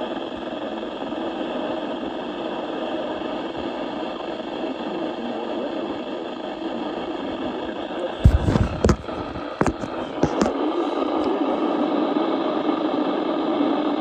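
Steady background hum and hiss, with a cluster of sharp knocks and clicks about eight to ten and a half seconds in.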